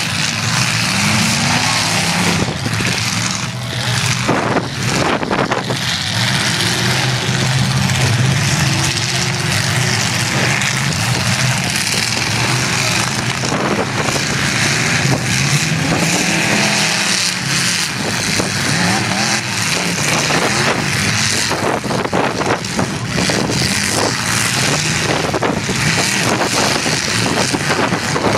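Several demolition derby cars' engines running hard and revving up and down, with repeated crashes of cars ramming each other, the hits bunched a few seconds in and again later.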